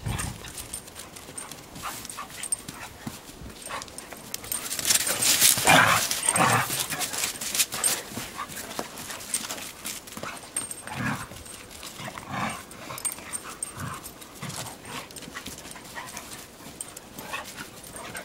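A Weimaraner and a collie playing rough in snow: short dog play noises over scuffing paws, loudest about five to six seconds in.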